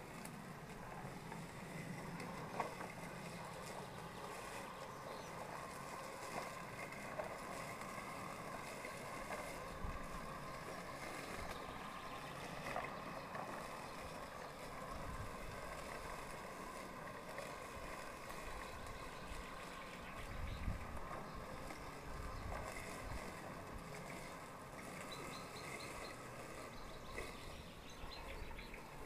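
Worx Landroid robotic lawn mower's electric motors whirring steadily as it drives along the lawn edge, with a few low rumbles around the middle.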